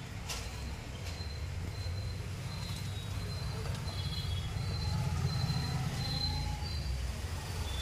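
Steady low background rumble with short, high-pitched chirps recurring about once a second and a few faint clicks.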